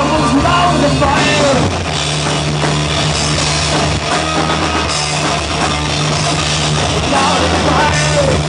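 Live rock band playing, with electric guitar and drum kit over steady low notes. A male singer's voice comes in at the start and again near the end.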